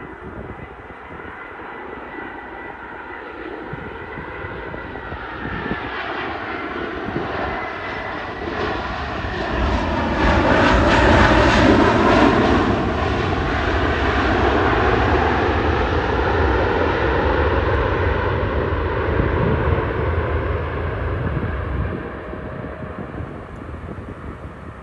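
Airliner coming in to land, its engine noise building steadily to a peak as it passes close by, with a whine that falls in pitch as it goes past. A low rumble carries on for several seconds after the pass, then fades near the end.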